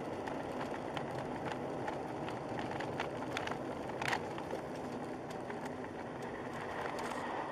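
A car driving along a road, heard from inside the cabin as a steady rush of tyre and engine noise. Scattered faint clicks run through it, with a louder tick about four seconds in.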